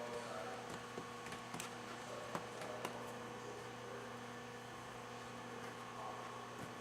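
Steady electrical hum, with a few faint clicks and taps in the first three seconds.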